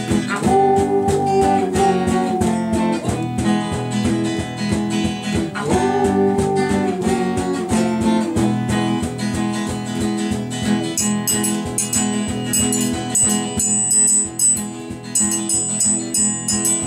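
Small band playing an instrumental passage: guitars strummed in a steady rhythm, with a lead line that slides up into a held note twice. Thin high ringing notes join in the second half.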